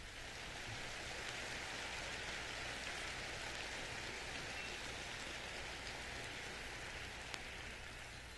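Live audience applauding, starting all at once and slowly dying away near the end.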